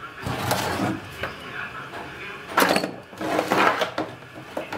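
Thick insulated cable being pulled through the core of a microwave-oven transformer and dragged over a wooden bench: irregular rubbing and scraping with light knocks, loudest in a stretch about two and a half seconds in.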